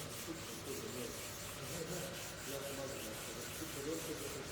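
Sandpaper rubbed back and forth on wood: a faint, even run of scratching strokes.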